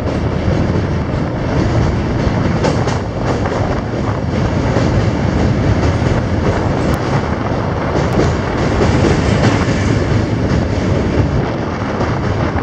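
Train running over a steel truss rail bridge, heard from inside a coach by an open window: a steady, loud rumble of wheels on rails with a few faint clicks.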